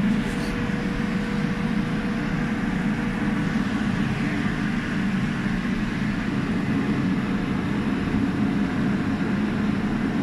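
Heater cannon (fan-driven space heater) running steadily at full blast, a continuous low fan-and-burner noise, blowing hot air onto a chiller compressor to drive out moisture.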